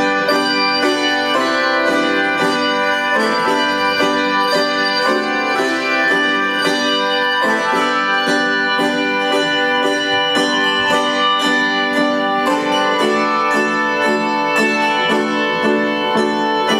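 Handbell choir playing a melody: many bells struck in a steady rhythm, several ringing together and sustaining between strikes.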